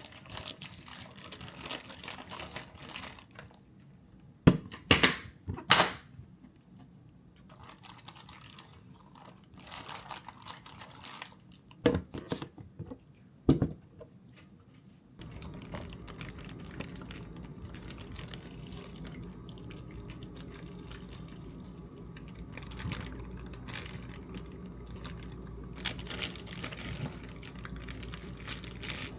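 Clicks, taps and a few sharp knocks of objects being handled. About halfway in, a steady low hum sets in beneath them.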